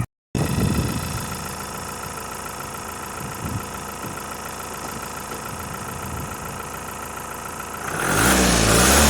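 Ford Transit's 2.0 EcoBlue four-cylinder diesel idling steadily under an open bonnet, smooth with no irregular noises, then revved up about eight seconds in.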